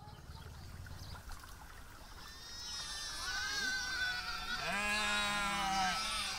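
Sheep and goats bleating: several overlapping calls begin a little over two seconds in, and the loudest is a long, lower bleat near the end.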